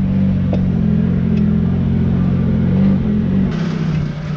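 Vehicle engine running steadily while driving; about three and a half seconds in its note drops lower.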